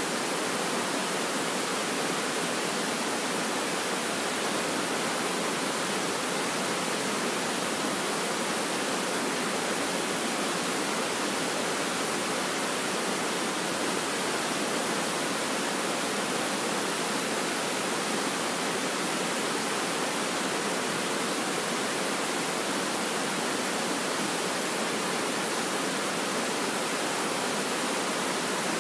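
Steady rushing of a fast river running over rapids: an even, unchanging hiss of water.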